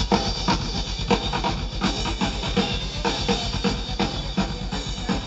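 Live drum kit played fast and hard: a rapid, driving bass-drum pattern under snare and cymbal hits, with no singing over it, heard from the audience in a large hall.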